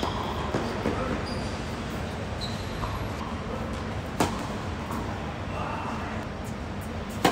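Tennis racket striking the ball on a flat serve: one sharp crack about four seconds in, over a steady low background rumble. Another sharp hit comes near the end.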